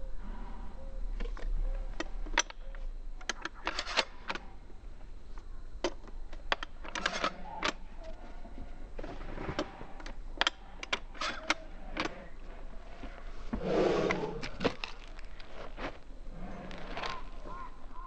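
Pump-action shotgun being loaded one-handed: repeated metallic clicks and clacks as shells are pushed into the magazine tube through the loading port, in uneven bursts, with a longer rustle about 14 s in.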